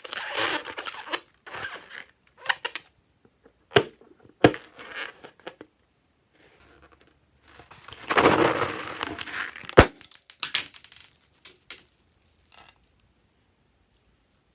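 Slime being squished and worked by hand, making crackly, squelching noises in bursts, with a few sharp pops or clicks.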